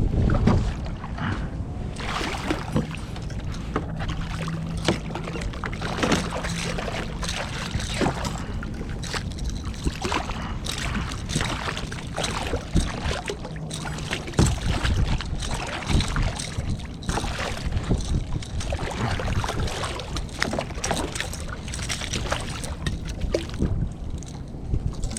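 Sounds of a fishing kayak on the water: splashing, with a steady stream of small knocks and rattles over a low rumble.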